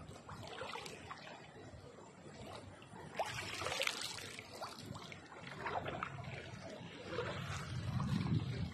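River water splashing and sloshing close to the microphone, in an uneven run of small splashes and drips, with a louder surge of splashing about three seconds in.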